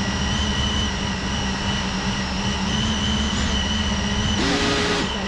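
Small FPV drone's brushless motors armed and idling steadily on the ground, a low hum with thin high whines. About four and a half seconds in, the pitch shifts briefly and a hiss rises.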